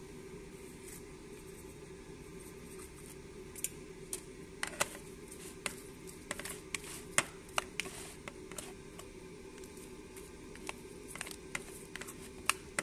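Seasoned mackerel being tossed and turned in a plastic basin: irregular taps and knocks of fish against the plastic, starting a few seconds in, over a steady low hum.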